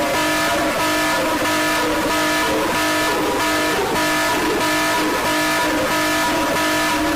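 Emergency-alert-style alarm: several steady electronic tones sounding together in short repeated pulses over a constant hiss.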